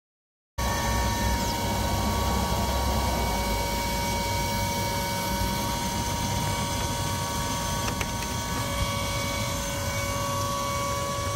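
Steady machinery hum with several constant tones over a low rumble, the rumble heavier in the first few seconds, and a single click about eight seconds in.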